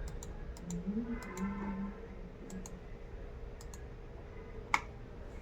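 Scattered light clicks of a computer mouse, about a dozen, some in quick pairs, the last and sharpest near the end. Behind them a low, drawn-out pitched hum rises and holds for about two seconds starting about a second in, over a faint steady electrical hum.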